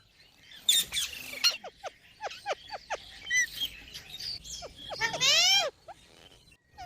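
Pet green parrot calling: a quick run of short, falling chirps, then a loud, drawn-out screech about five seconds in.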